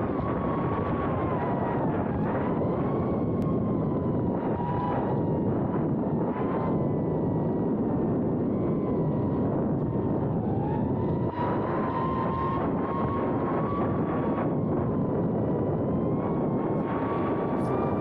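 GepRC Cinelog25 FPV drone's brushless motors whining as it flies, the pitch wavering up and down with the throttle and rising clearly about ten seconds in, over a steady rush of wind and propeller noise.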